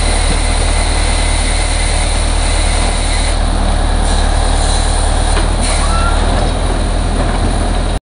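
Diesel engine of a Case 580 Super K backhoe loader running steadily and loudly while its rear backhoe arm digs.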